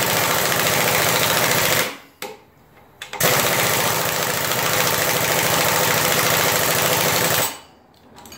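Impact wrench hammering on the centre bolt of a crankshaft pulley puller, in two long runs of rapid impacts with a short pause between, drawing the pulley off the crankshaft.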